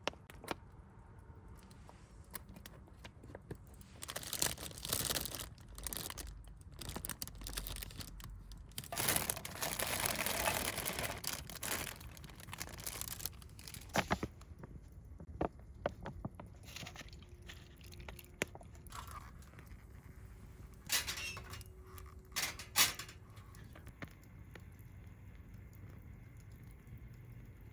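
Cooking prep handling noises: plastic packaging crinkling and tearing, with scattered clicks and knocks of utensils and containers. There is a longer stretch of rustling about a third of the way in.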